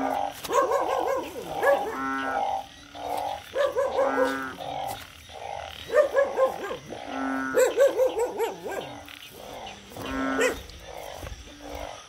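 A chorus of frogs, including the narrow-mouthed frogs (อึ่ง) that come out after rain, calling over one another. Short pitched calls and lower held notes repeat about once a second.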